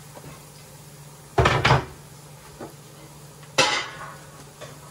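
A wooden cutting board knocking against a stainless steel cooking pot as garlic is scraped into it: a quick cluster of two or three loud knocks about a second and a half in, then a single sharper clank with a short ring about two seconds later.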